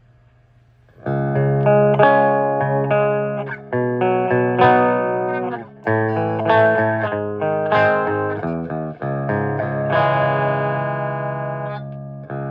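Distorted electric guitar played through a Marshall 1960 4x12 speaker cabinet, driven by a Peavey 6505 II amp and picked up by a cell phone. It starts about a second in with sustained chords that change every half second to a second, with short breaks in between.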